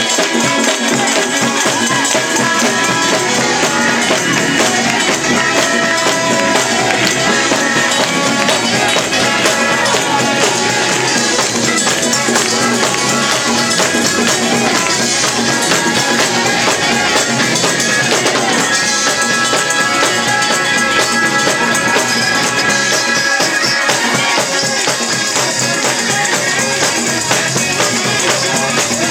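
Live gospel music from a church band, loud and continuous, with a tambourine shaking through it.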